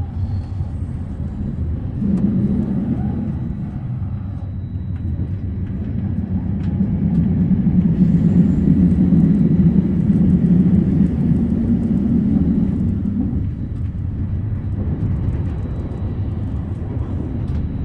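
Steady low rumble of a moving passenger train heard from inside the carriage. It grows louder through the middle and eases off again.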